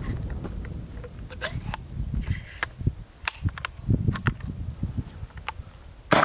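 Scattered clicks and knocks of a 37mm launcher being handled and aimed, over wind on the microphone. Near the end comes a single sharp report as the launcher fires its black-powder load.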